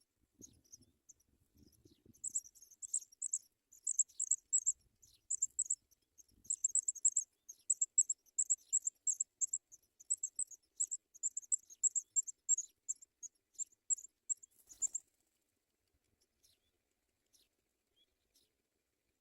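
Nestlings begging with rapid, high, thin cheeps in quick irregular runs, the sign of a parent arriving with food. The begging stops abruptly about three-quarters of the way through.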